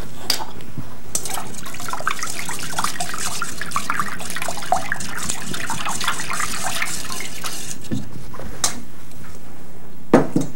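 Wire whisk beating liquid ingredients in a stainless steel bowl: quick, irregular sloshing with the wires scraping and clicking against the metal. It thins out about eight seconds in, and there is a louder clank near the end.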